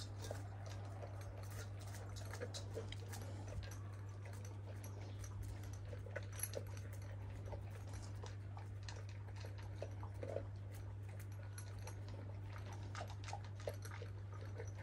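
Two young Kangal dogs eating dog food mixed with yogurt from bowls: scattered small crunches and clicks against the bowls, over a steady low hum.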